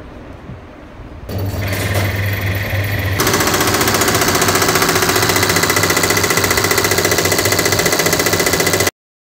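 Six-element in-line diesel injection pump running on a calibration test bench: the bench drive starts about a second in, and a couple of seconds later the pump is pumping into the test injectors with a loud, fast, even rattle that cuts off suddenly near the end.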